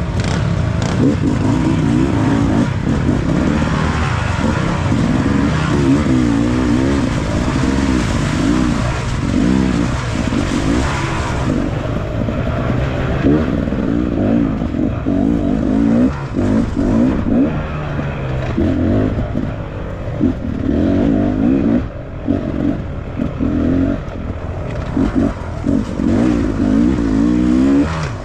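Dirt bike engine running under constantly changing throttle, its pitch rising and falling as it revs up and down.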